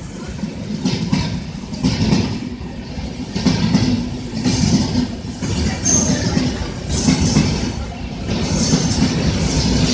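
Rajdhani Express passenger coaches rolling past along a platform: steady wheel-on-rail rumble with a clatter that swells about once a second as the bogies cross the rail joints, and a faint high wheel squeal now and then.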